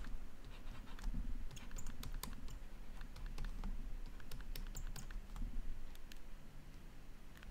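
Stylus clicking and tapping on a tablet as equations are handwritten: a run of light, irregular clicks.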